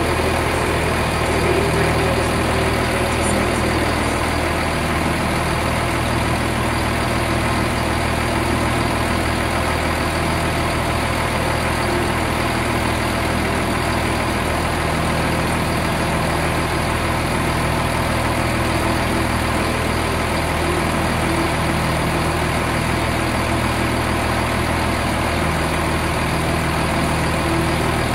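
Underfloor MTU six-cylinder diesel engine of a Class 170 Turbostar diesel multiple unit idling steadily, heard close up beside its turbocharger.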